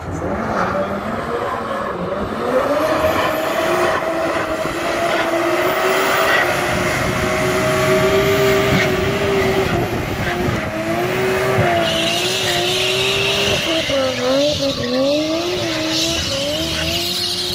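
Nissan Skyline drift car revving hard and sliding in circles, its engine climbing to a high held pitch and then rising and falling as the throttle is worked, with tyres screeching as they spin and smoke. The tyre screech grows louder in the second half.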